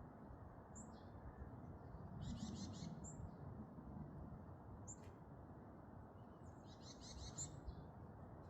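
Varied tit calling: a few single short, high call notes and two quick rattling series of high notes, one about two seconds in and one near the end, over faint steady background noise.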